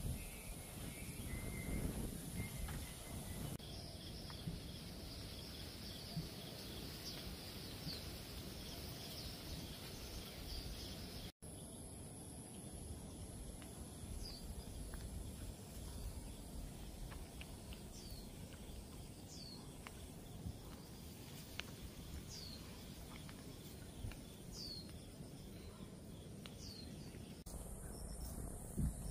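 Wetland ambience: insects drone steadily at a high pitch while a bird repeats a short, falling whistle every second or two, over a low rumble. The mix shifts abruptly a few times.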